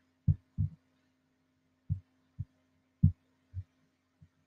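A series of short, dull, low thumps at uneven intervals, about seven in four and a half seconds, over a faint steady hum.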